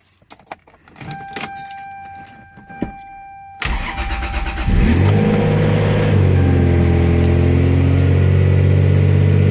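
Car engine cold-started after sitting unused for months. A few clicks and a steady high tone come first, then the starter cranks for about a second before the engine catches and settles into a steady idle.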